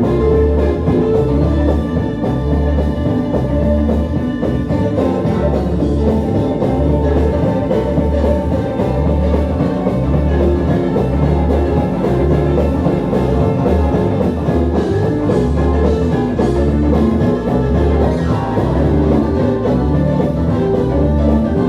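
Live gospel band music with a steady, evenly pulsing bass line under the other instruments.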